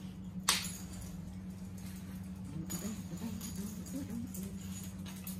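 A single sharp clink of cutlery on a plate about half a second in, over a steady low hum, during a quiet meal.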